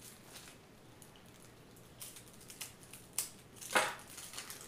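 Rustling and crinkling of a new card deck's wrapper and small cardboard box as they are handled and opened, in short separate scrapes, the loudest one shortly before the end.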